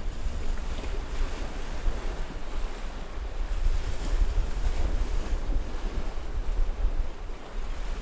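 Choppy open sea, waves washing and breaking in swells, with wind gusting on the microphone as a low rumble that comes and goes.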